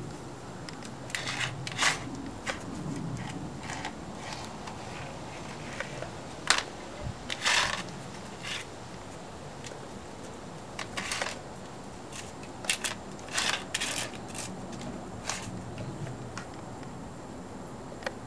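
Irregular short clicks and knocks as a Labrador puppy noses and mouths a hard bone-shaped dog biscuit on brick paving, the biscuit clacking and scraping against the bricks.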